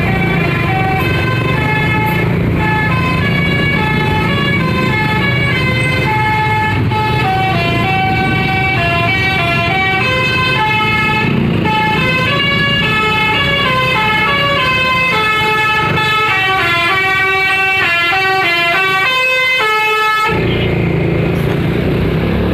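Telolet bus horn, a multi-note musical air horn, playing a tune of short stepped notes that quicken later on, over the rumble of the bus engine. About twenty seconds in the tune cuts off abruptly, leaving the engine running.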